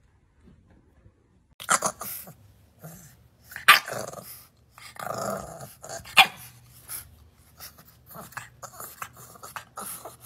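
A bulldog puppy barking and growling, a string of short, sharp yaps with rougher growls between them, starting after about a second and a half of near silence.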